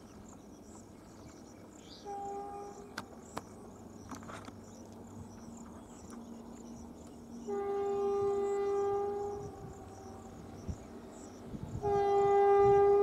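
Horn of an Indian Railways electric locomotive sounding three times on one steady pitch: a short toot about two seconds in, a long blast around the middle, and a louder long blast near the end. Insects chirr steadily in the background.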